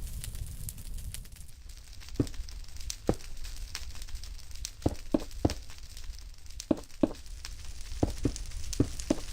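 Irregular sharp clicks and crackles, about a dozen, over a steady low rumble.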